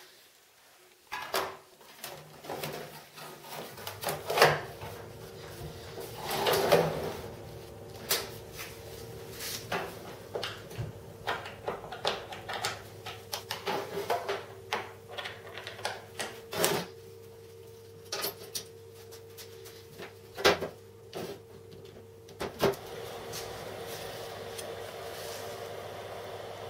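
Irregular metal clunks, clicks and knocks as the sheet-metal cover of a homemade welder is fitted and its electrode holder, clamp and cables are handled, over a faint steady hum.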